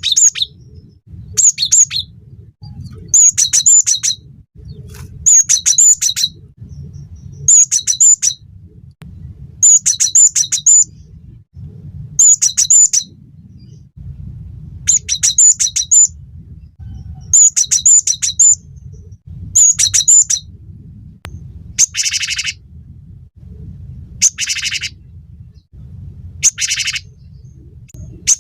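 Cinereous tit (gelatik batu) singing vigorously: short phrases of rapidly repeated high notes, about one phrase every two seconds. From about two-thirds of the way in the phrases change to a denser, buzzier pattern. A low steady rumble runs underneath.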